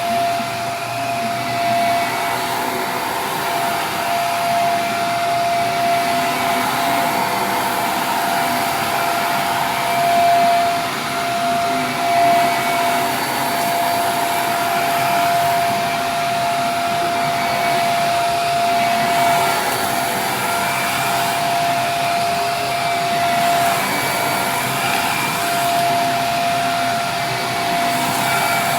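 Vacuum cleaner running steadily, a constant whine over the motor and airflow noise.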